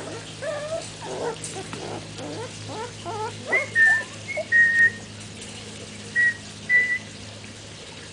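Young puppies squeaking and whining as they play together: many short, wavering squeaks, then from about halfway several louder, high, steady whistle-like whines.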